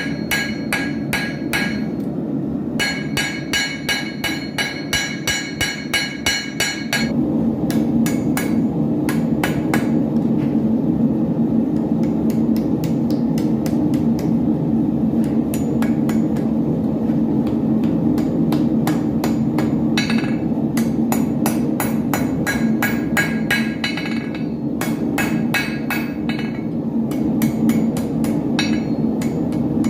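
Blacksmith's hammer striking iron on an anvil in rapid blows, about four a second, each with a metallic ring, with a brief pause early on. A steady low hum starts about seven seconds in and continues under fainter hammer blows.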